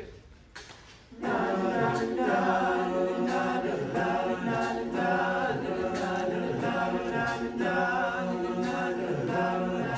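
Mixed high-school a cappella choir singing, entering together about a second in with sustained chords over a steady beat of short clicks.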